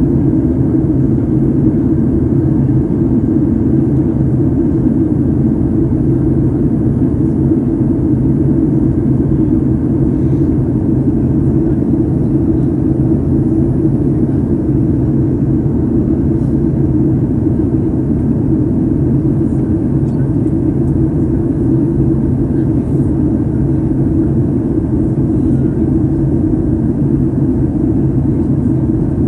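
Steady low rumble of jet engines and airflow inside a jet airliner's cabin in flight, heard from a window seat over the wing.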